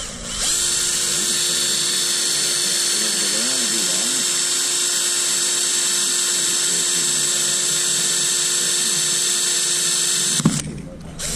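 Hand-held power drill with a #40 bit running steadily, drilling out the head of an AD rivet that holds a nut plate; it runs as an even whine and stops abruptly about ten seconds in.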